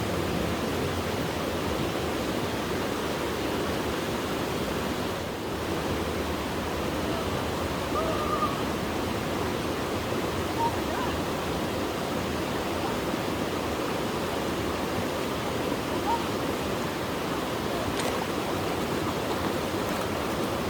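Fast-flowing mountain river rushing steadily over rocks in a strong current.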